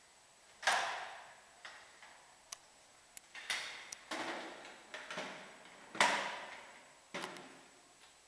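Footsteps on a bare concrete floor, echoing in an empty unfinished room: a series of uneven steps, loudest about a second in and about six seconds in, with a few sharp clicks between them.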